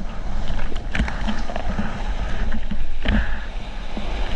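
Whitewater of a broken ocean wave rushing and splashing right at the microphone, with a heavy low rumble and scattered splash clicks.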